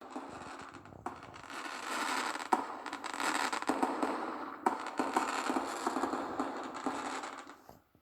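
Fireworks crackling and popping, with several sharp bangs among them, played back from a fireworks video. The sound fades away near the end.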